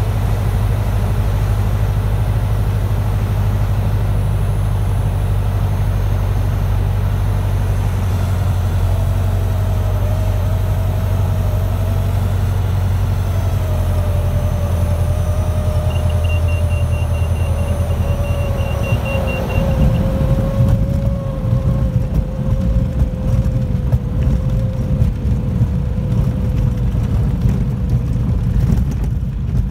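Light aircraft's piston engine and propeller heard from inside the cockpit, a steady drone through the final approach. About twenty seconds in it turns into an uneven low rumble as the aircraft rolls out on the grass runway.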